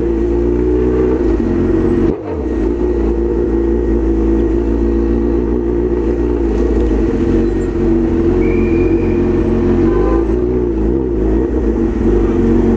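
Motor vehicle engine running with a steady low rumble and hum while the vehicle crawls through city traffic, with a brief dip in level about two seconds in.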